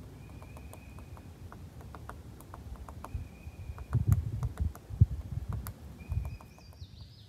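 Woodpecker tapping at a tree: irregular, dry taps, several a second, with one louder knock about five seconds in, not a fast drumming roll. A thin, level whistle about a second long comes three times, and there are low rumbling bursts near the middle.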